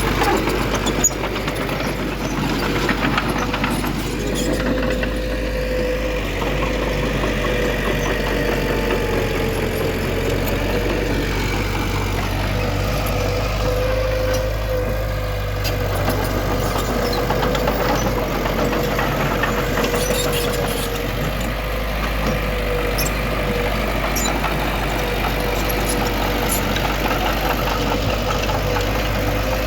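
Diesel engine of heavy earthmoving machinery, a bulldozer or dump truck, running steadily.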